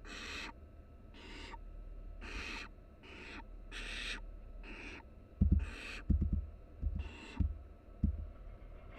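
Barn owl nestlings giving rasping, hissing calls of about half a second each, repeated roughly once a second. Several short low thumps in the second half are the loudest sounds.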